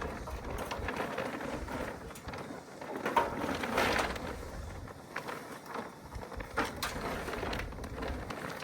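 Plastic tarp rustling and crinkling as it is dragged over an RV roof, with scattered clicks and knocks; loudest about three to four seconds in.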